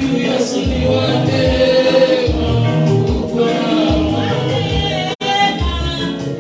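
Live praise-and-worship music: a group of voices singing together over a band with a pulsing bass line. The sound cuts out for a split second about five seconds in.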